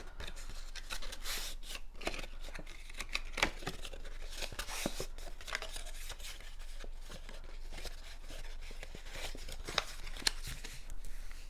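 Cardstock paper pieces being handled: irregular paper rustling with light clicks and taps, a few of them sharper.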